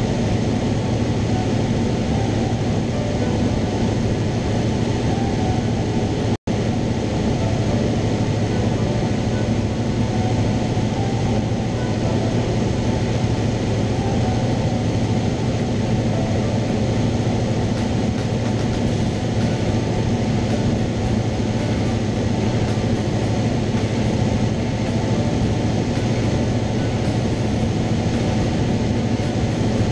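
Steady drone of a Cessna 172's piston engine and propeller in cruise, heard inside the cabin with airflow hiss, broken by a momentary dropout about six seconds in.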